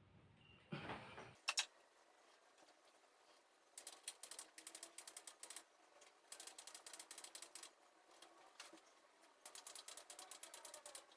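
Rapid mechanical clicking like a ratchet, in three runs of about a second and a half each at roughly eight clicks a second. A short rustle and one sharp click come about a second in.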